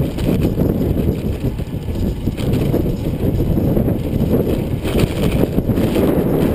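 Steady wind buffeting on the microphone of a handlebar-mounted camera while a road bike rolls along a rough paved road, with tyre noise underneath.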